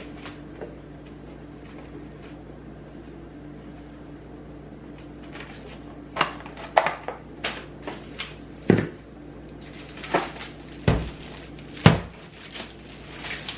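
Kitchen handling noises: after a few seconds of a steady low hum, a run of about a dozen knocks and clacks of dishes and containers being handled, with a few heavier thumps of cupboard doors or drawers shutting.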